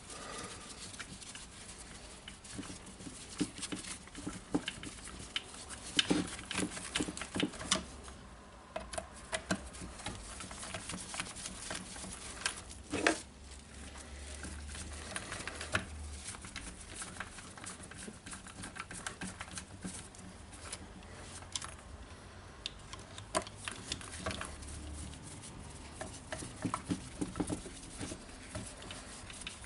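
Irregular small clicks, taps and rattles of hands working on a plastic power-tool housing and driving its screws, with a few sharper knocks.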